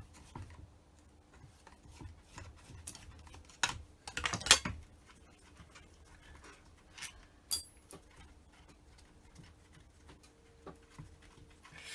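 Scattered small metallic clicks and clinks of bolts being undone and set down on a Holley 750 cfm carburettor. There is a denser run of clicks about four seconds in and one sharp, ringing metal clink a little past halfway.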